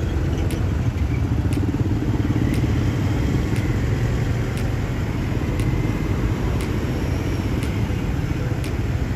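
Dense rush-hour road traffic, mostly motorbikes with some cars, running in a steady low rumble, with a faint tick about once a second.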